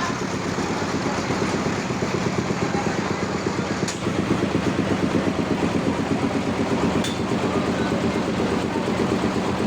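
Engine of a homemade sawmill running steadily with a pulsing beat, a little louder after about four seconds. There are two sharp clicks, at about four seconds and about seven seconds in.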